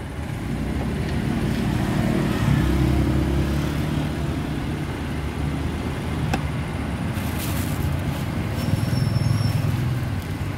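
A motor vehicle engine running close by amid street traffic noise, getting louder twice. There is one brief click about six seconds in.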